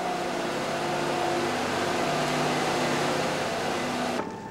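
Mining machinery running underground while coal is loaded: a steady machine hum with a rushing noise over it, stopping abruptly about four seconds in.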